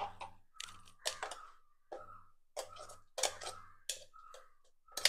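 A spoon scraping and knocking thick herbal paste out of a steel grinder jar into a glass bowl: an uneven run of sharp clicks and scrapes, a dozen or so, in quick bursts.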